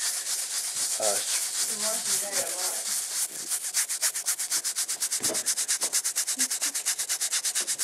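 Blanket fabric rubbed hard against itself between the hands, scrubbing stain cleaner into an old blood stain. It starts as a continuous scratchy scrubbing and about three seconds in settles into a fast, even rhythm of about eight or nine strokes a second.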